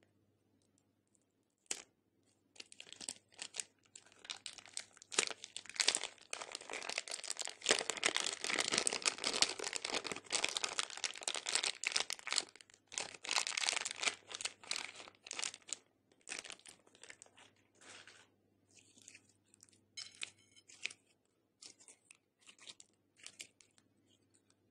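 Clear plastic piping bag crinkling and being pulled apart as it is peeled off a lump of glossy slime, with sticky crackles from the slime. Dense crackling sets in a couple of seconds in and thins to scattered crackles over the last third.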